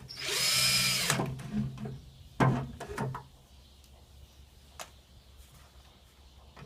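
Screw gun driving a screw for about a second, its motor whine bending up and down as it spins up and slows, followed by a few short knocks and clicks.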